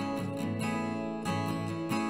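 Background music: strummed acoustic guitar, playing steadily.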